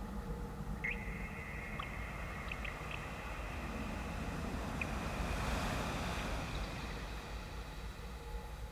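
Ambient electronic drone music: a low rumble under several held tones, a higher tone coming in about a second in, and a wash of noise that swells to a peak in the middle and then eases off.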